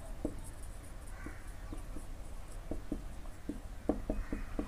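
Marker pen writing on a whiteboard: a string of short, irregular ticks and strokes as the words are written, faint, over a low steady hum.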